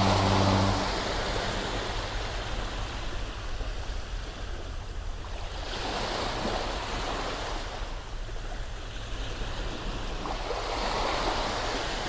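Ocean waves washing ashore, swelling and easing about three times. A foghorn's steady low tone ends just under a second in.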